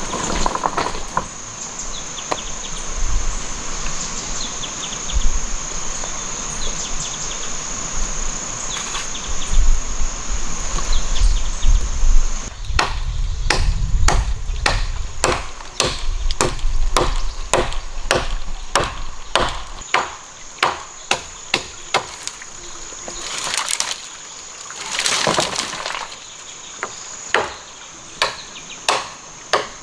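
A steady high-pitched insect drone of cicadas or crickets. About halfway through, a long run of sharp chops begins as a blade cuts into a dead wooden branch, about two strokes a second.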